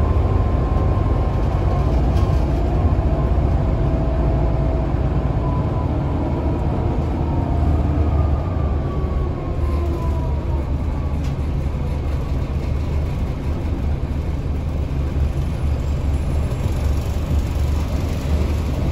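Scania L94UA articulated city bus heard from inside the passenger cabin: a steady low engine rumble with road noise while driving. Faint whines drift down in pitch, most clearly one about ten seconds in.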